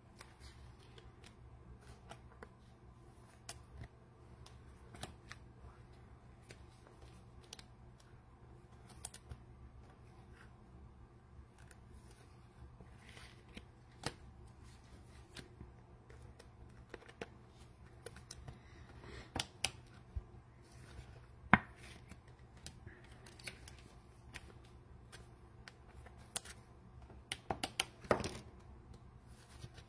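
Trading cards and cello pack wrappers being handled over a low steady room hum: scattered light clicks and taps, one sharp click about two-thirds of the way in, and a quick run of crinkling clicks near the end.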